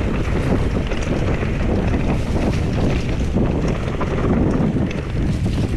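Wind buffeting the microphone of a mountain bike riding fast down a dirt trail, over the rumble of the tyres and light rattles from the bike on the rough ground.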